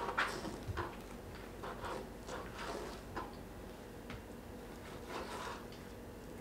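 Kitchen knives cutting raw beef into chunks on plastic cutting boards: scattered light taps and clicks as the blades meet the boards.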